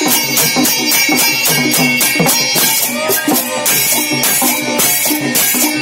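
Large brass hand cymbals clashing in a fast, steady rhythm, about four strikes a second, with a rope-laced barrel hand drum played by hand and small cymbals joining in: a traditional devotional procession band playing.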